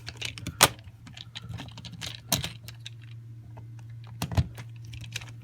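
Scattered small clicks and taps of a screwdriver and screw on a plastic outlet faceplate as it is fitted and screwed down, the sharpest about two-thirds of a second in, over a steady low hum.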